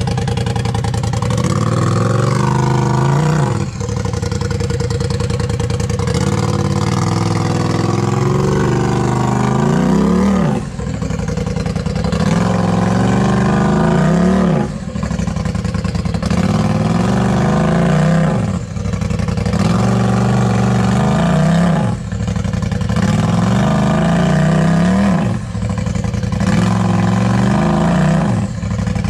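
Rock-crawling tube-chassis buggy's engine revving up and letting off over and over under load as it climbs a steep rock slab. Each rev rises in pitch for a couple of seconds, then drops away, roughly every three to four seconds, about seven times.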